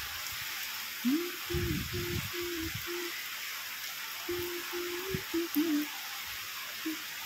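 Steady hiss of heavy rain. Over it, a faint held tone sounds in a string of short notes twice, with a few low rumbling bumps in between.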